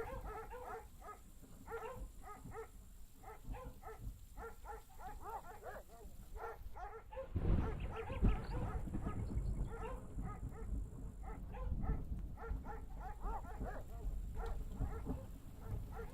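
Many short, high animal cries, several a second, like young animals whimpering, with a louder noisy stretch about halfway through.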